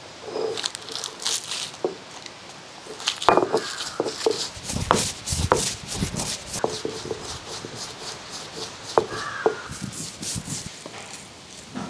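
Roasted dry red chillies crushed under a hand-held stone roller on a flat grinding stone: irregular crackling and crunching of the brittle chillies, with stone scraping on stone.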